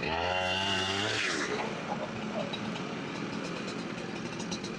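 A two-stroke chainsaw revving for about a second at the start, then dropping off. Lower, steadier engine noise carries on for the rest.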